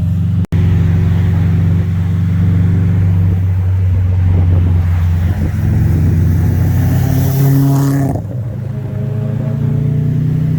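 2015 Subaru WRX's turbocharged flat-four running through a Remark R1-Spec exhaust, a deep, loud exhaust note. The revs climb from about five seconds in, then drop off abruptly near eight seconds before settling back to a steady drone.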